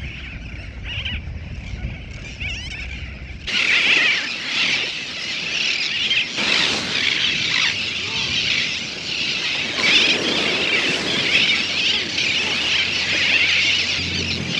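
A large seabird colony calling: many overlapping high cries from terns and other nesting seabirds. It starts faint over wind rumble on the microphone, then about three and a half seconds in becomes a dense, continuous chorus.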